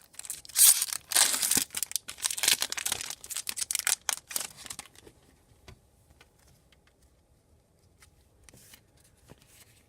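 A hockey card pack's wrapper being torn open and crinkled for about five seconds, then faint light ticks of the cards being handled.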